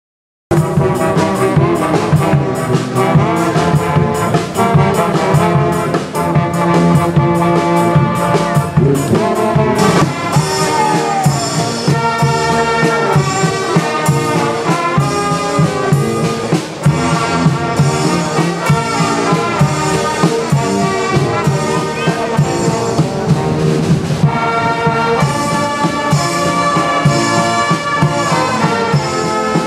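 Brass band playing a tune, trumpets and other brass over a steady beat, starting about half a second in.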